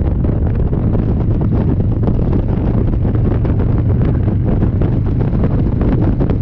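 Wind rushing over the camera microphone at motorway speed, over the steady low drone of a Harley-Davidson V-twin cruising.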